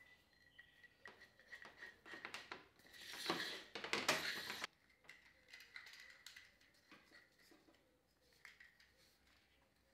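Lamp flex being fed and pulled by hand through a turned wooden lamp body: faint rustling and scraping, with a louder stretch of the cord rubbing through from about three to four and a half seconds in.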